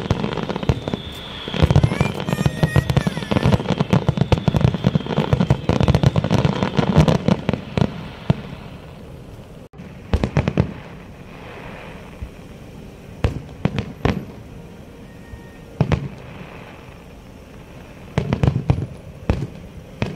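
Fireworks display: aerial shells bursting in a dense, rapid run of bangs and crackling for about the first eight seconds, then, after a break, separate booms every second or two.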